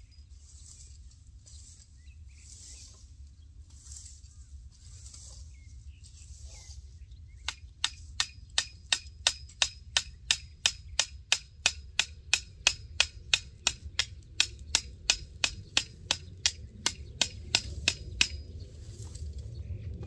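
A hammer driving a fence post for the net with quick, even blows, about three a second, each strike ringing. The hammering starts about a third of the way in and stops shortly before the end.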